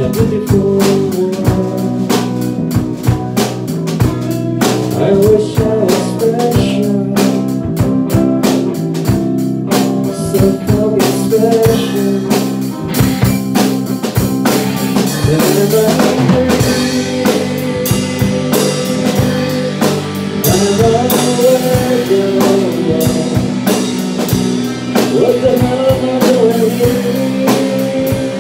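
A band playing live together: drum kit keeping a steady beat under amplified electric guitars, with a lead line bending in pitch over the top.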